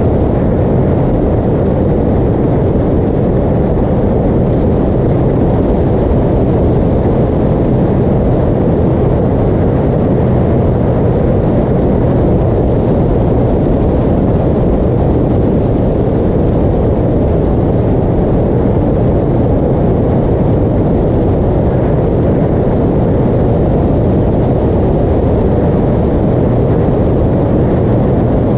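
Motorcycle cruising at a steady highway speed: a constant heavy rush of wind over the microphone, with the engine running steadily underneath.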